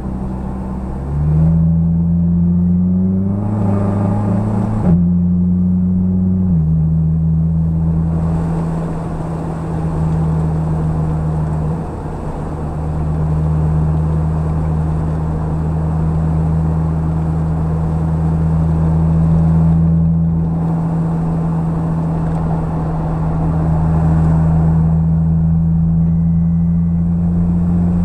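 Car engine heard from inside the cabin while lapping a race circuit. It picks up about a second in, drops in pitch twice around five and six and a half seconds in, then runs at a steady note with road noise for the rest of the lap section.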